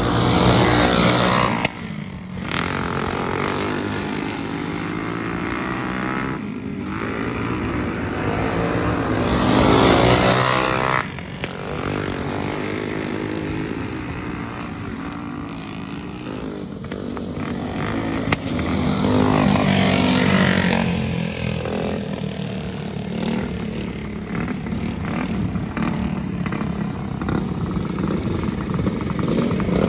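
A pack of racing go-karts' small engines running hard around a dirt oval. The sound swells loud as the karts pass about every ten seconds, sliding in pitch, and drops back between passes.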